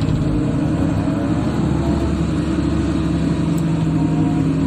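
Wheel excavator's diesel engine running steadily under load, heard from the operator's cab as the hydraulic boom and bucket swing and move soil.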